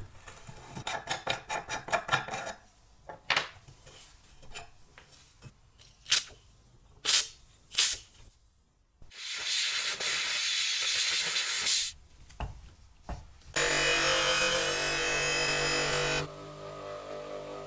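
Workshop tool sounds: a fast rattle of clicks, a few sharp knocks, a few seconds of hissing, then a power tool running loudly with a low hum for a few seconds.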